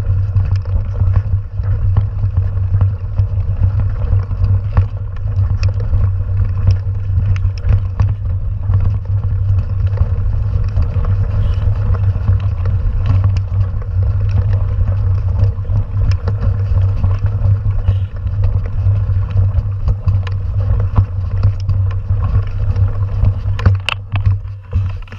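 Mountain bike riding over a dirt and gravel forest trail: a steady, loud low rumble of wind buffeting the camera microphone and tyres on the ground, with frequent small clicks and rattles from the bike over stones. It eases just at the end.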